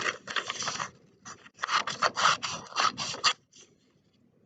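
Scissors cutting through a paper sheet: a run of irregular, scratchy snips that stops about three and a half seconds in.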